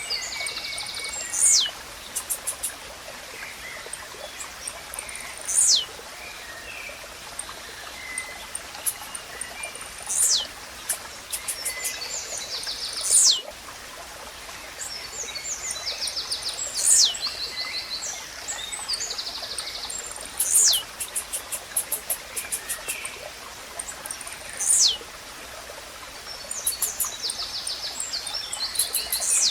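Blue-black grassquit (tiziu) singing: a short, sharp falling note repeated about every four seconds. Other birds chirp and trill between the notes over a steady background of running water.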